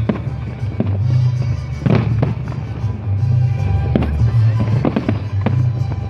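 Fireworks bursting overhead in a string of sharp bangs, roughly one every second, over loud music with a heavy, steady bass line.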